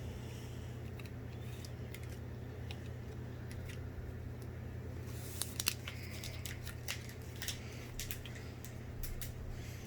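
Pokémon trading cards being handled and flipped through: scattered light clicks and papery rustles, with a brief burst of crisp rustling about halfway through, over a steady low hum.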